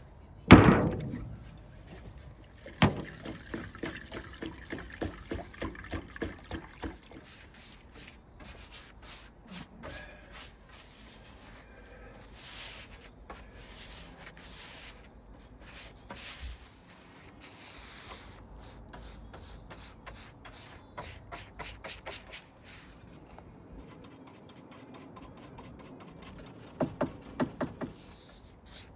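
Brush strokes working wood preserver into bare timber, a quick run of soft swishing strokes repeated in bursts, about two to three a second, with a sharp knock about half a second in.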